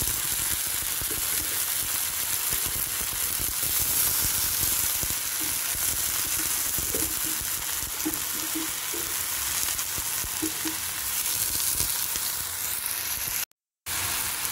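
Blanched spinach sizzling in hot oil in a wok with shallots, garlic and chili as it is stir-fried, a steady hiss. The sound drops out for a moment near the end.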